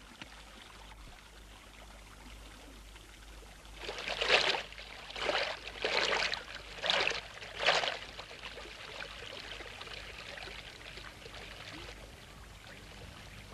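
Faint steady hiss with a run of five short noisy swishes, about one a second, a few seconds in.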